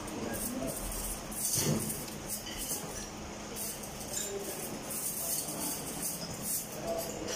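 Spoons and forks clinking against plates as several people eat at a table, in scattered short clinks with a stronger one about a second and a half in, over a faint steady hum.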